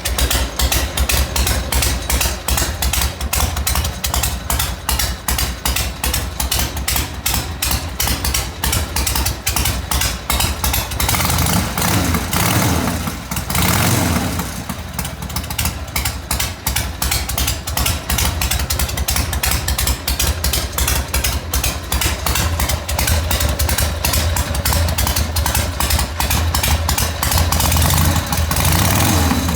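1980 Harley-Davidson Ironhead Sportster's air-cooled V-twin running just after start-up, freshly rebuilt, with a steady rapid firing beat. The throttle is opened briefly about halfway through and again near the end.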